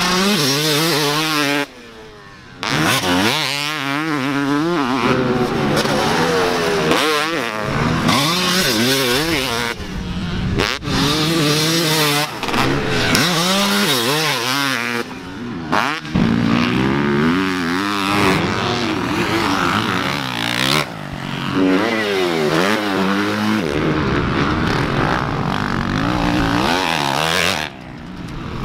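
Motocross dirt bike engines revving hard, the pitch climbing and dropping again and again as the bikes accelerate and shift through the gears, in a run of short clips with a few abrupt breaks between them.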